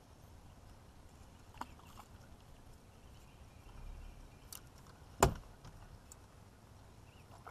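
A single sharp knock on the fishing boat about five seconds in, with a few faint clicks before it, over a low steady rumble.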